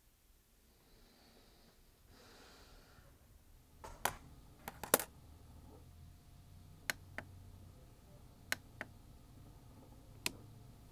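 Buttons on top of a digital alarm clock pressed, giving a series of sharp plastic clicks, several in quick pairs, starting about four seconds in.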